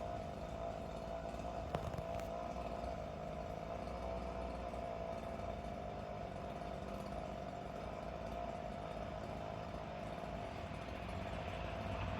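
An engine idling steadily, with one short knock about two seconds in.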